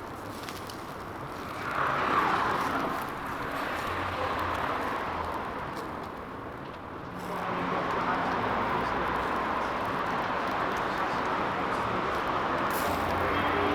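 Traffic noise: vehicles passing, rising about two seconds in, fading, then building again from about seven seconds in and holding.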